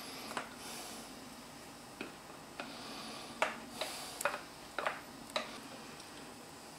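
Scattered light clicks and knocks of a plastic scraper against a bowl and a metal cake tin as cake topping is scraped out onto the batter, over faint room noise.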